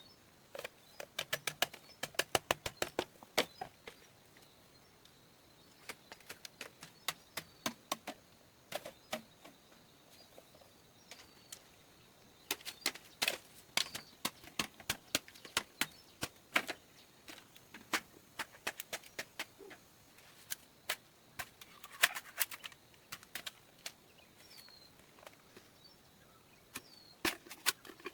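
Irregular bursts of sharp clicks and taps, with short pauses between them, and a bird chirping faintly now and then.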